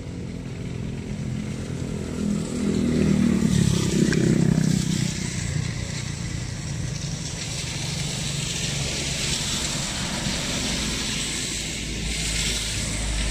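An engine running, swelling louder about three to five seconds in, over a steady hiss.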